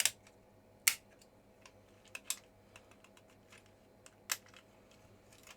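Sharp plastic clicks and snaps, about five clear ones with fainter ticks between, as the keyboard's plastic retaining clips are prised free in a Commodore GL-976M calculator case.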